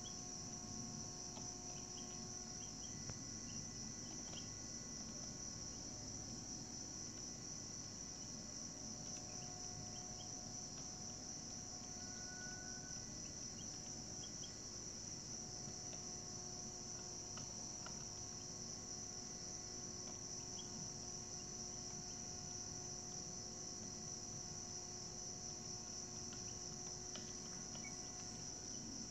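Steady high-pitched chorus of insects, unbroken throughout, with a few faint short chirps scattered over it.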